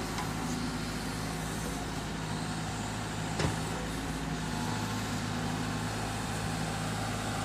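Diesel engine of a SANY wheeled excavator running steadily as it digs, with a single short knock about three and a half seconds in.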